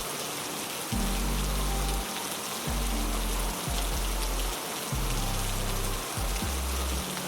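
Steady heavy rain, an even hiss of falling drops, with low sustained music notes underneath that change every second or two.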